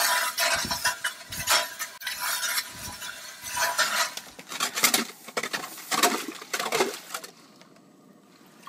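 Hand ice auger drilling through lake ice: a run of irregular scraping strokes as the blades cut, with ice chips clinking, dying away near the end.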